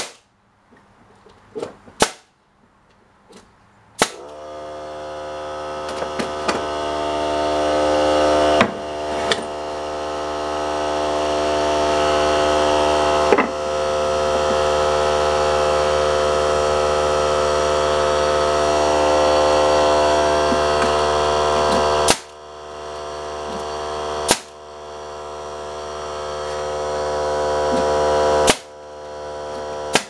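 Pneumatic brad nailer firing sharp single shots into cedar boards, about eight spread through. About four seconds in, an air compressor starts and runs with a steady droning hum that slowly grows louder.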